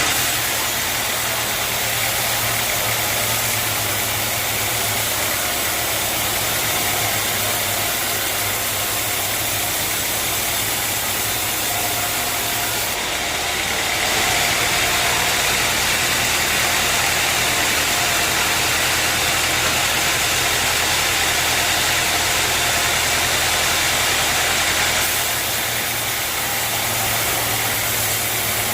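Sawmill machinery running steadily: a motor hum under a dense, hissing mechanical noise. The sound shifts abruptly about 13 seconds in and again near 25 seconds.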